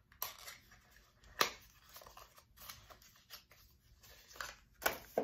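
A small cardboard and paper product box being opened and handled: irregular rustling and scraping, with sharp snaps about a second and a half in and near the end.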